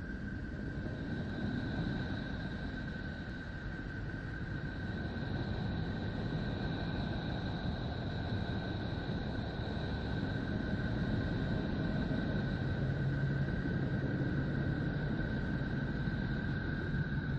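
Space sonification: a steady, rumbling drone with a thin, high, unwavering tone held above it, swelling slightly in the second half.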